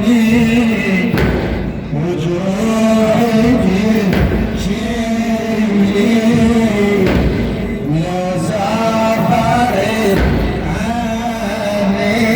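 A man's voice chanting a melodic religious recitation in long, wavering, ornamented phrases.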